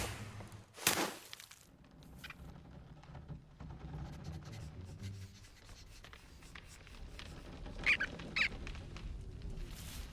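Animated-cartoon sound effects: a sharp thud at the start and another about a second in, a low rumble underneath, then two short high squeaks close together near the end.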